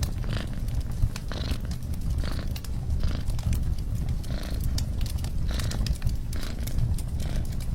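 A domestic cat purring close by, a steady low rumble that swells about once a second with its breathing, over the sharp snaps and crackles of a wood fire burning in a fireplace.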